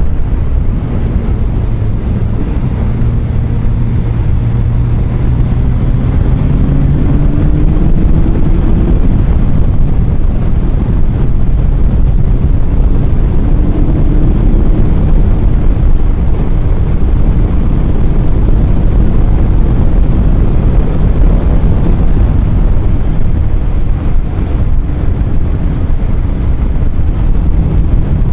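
Kawasaki ZX-14R's inline-four engine running at road speed, its pitch climbing steadily for several seconds early on as the bike accelerates and again briefly midway, under heavy wind rush on the microphone.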